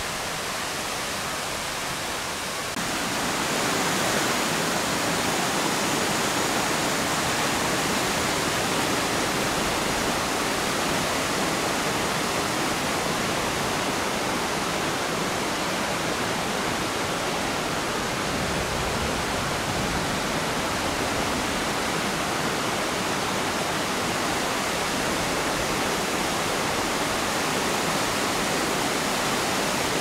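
Steady rush of a waterfall cascading down a stepped rock face, water splashing over the boulders; it grows louder about three seconds in and then holds even.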